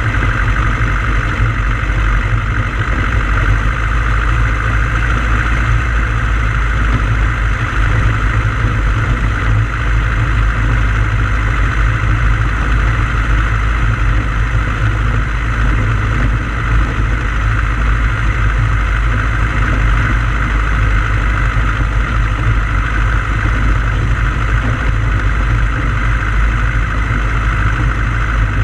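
Engine of a Pou-du-Ciel (Flying Flea) light aircraft running steadily at an even speed as the plane taxis across grass, heard from a camera mounted on the airframe.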